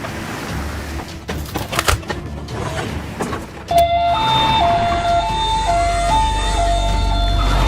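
Clattering noise with a few sharp knocks, then a two-tone hi-lo emergency-vehicle siren starts about halfway through, alternating between a lower and a higher tone about twice a second over a low engine rumble.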